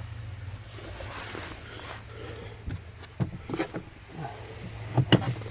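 Sharp plastic clicks and knocks as the wiring connector is pushed back onto the new blower motor resistor under the dashboard, a couple about three seconds in and a pair near the end, over a low steady hum.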